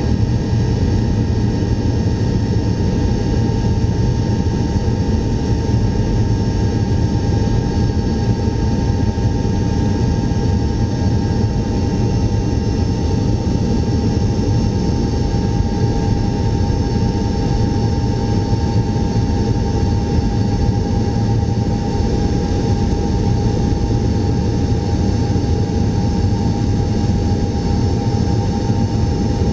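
Tupolev Tu-154M airliner's rear-mounted turbofan engines heard from inside the cabin, running steadily at low taxi power while the aircraft rolls along the taxiway: a constant low rumble with a steady high whine over it.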